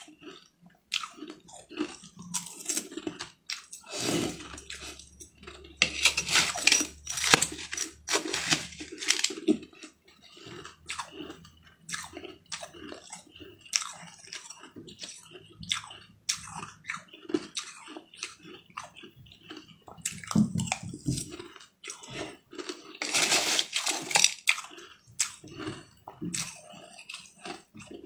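A person chewing and crunching mouthfuls of green crushed ice, close to the microphone. The crunching comes in irregular crackles, heaviest in a stretch a few seconds in and again near the end.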